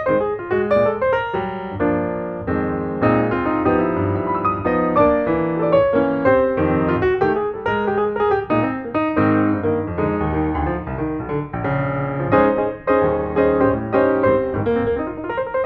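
Background piano music: a steady stream of quick, flowing notes.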